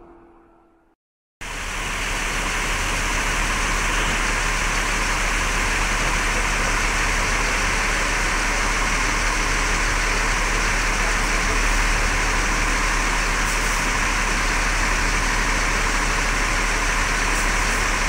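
A city bus engine running steadily, heard from inside the driver's area, with a constant low hum. It starts abruptly about a second and a half in, after a short silence.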